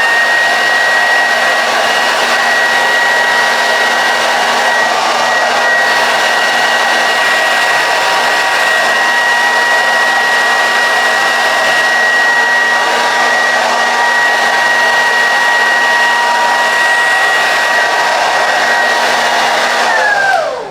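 Handheld hair dryer blowing steadily, a constant motor whine over a rush of air. Near the end it is switched off, and its pitch falls as the motor winds down.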